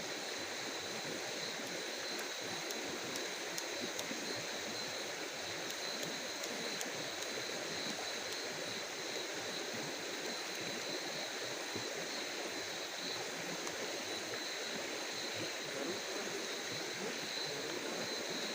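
Steady rushing of running water, with a constant high-pitched drone above it.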